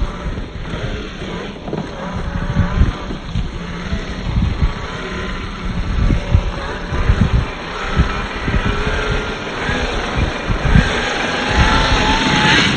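Traxxas TRX-4 Ford Bronco RC crawler driving off-road: its electric motor and gears whine, rising and falling in pitch with the throttle. Low wind rumble and knocks on the microphone run underneath.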